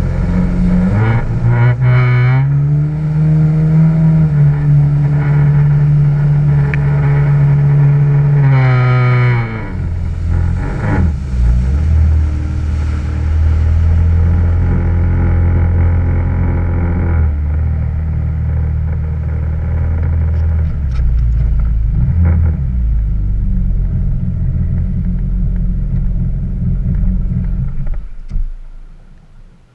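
Yamaha WaveRunner engine running at speed, its pitch rising about a second in and holding high, then dropping to a lower steady note as the throttle comes off about a third of the way through. The engine falls away sharply near the end as the craft slows to a stop.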